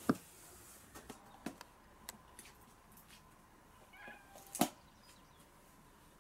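A few scattered sharp clicks and taps, the loudest just after the start and another about four and a half seconds in, with a brief faint chirp just before that second one.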